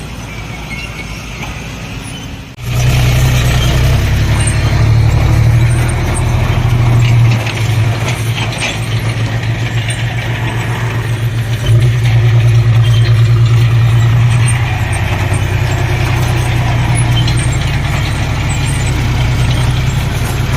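Heavy diesel engine running steadily with a deep, even hum. The sound cuts out briefly about two and a half seconds in and comes back louder.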